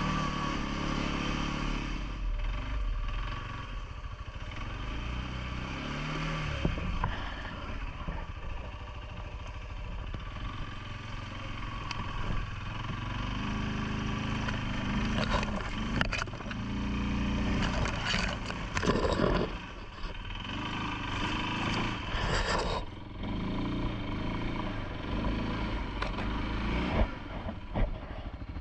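CFMoto ATV engine running, its revs rising and falling as the throttle changes, with scattered clattering knocks from the machine in the second half.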